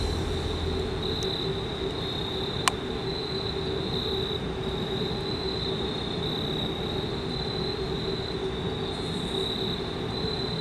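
Insects trilling in a steady high-pitched chorus over a continuous low rumble, with one sharp click a little under three seconds in.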